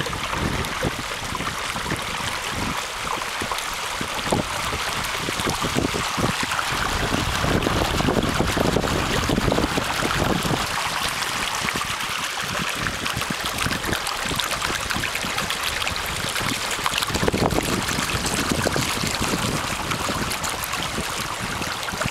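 Water rushing and splashing along a plywood sailing-kayak trimaran's outrigger float and hull as the boat moves through light chop, with low rumbles of wind on the microphone at times.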